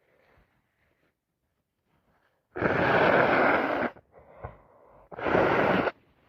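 Two loud, noisy blasts of air through a congested nose from a person with a cold and allergies: a long one a little before halfway and a shorter one near the end.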